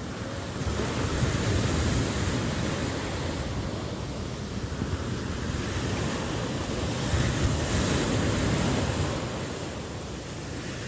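Ocean waves breaking and washing on a shore, a steady surf noise that swells about a second in and again past the middle.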